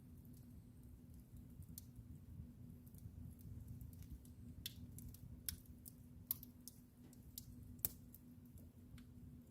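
Wood fire in a fireplace crackling faintly: scattered sharp pops and ticks, a few louder ones in the second half, over a low steady rumble.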